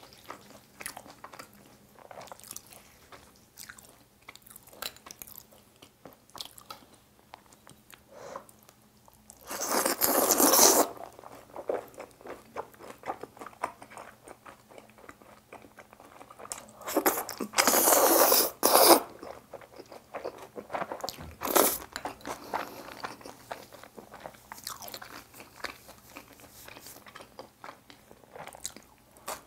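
A person eating sauced fried chicken and black-bean instant noodles close to the microphone: chewing with many small crisp crunches, and two louder, longer noisy stretches about ten and eighteen seconds in.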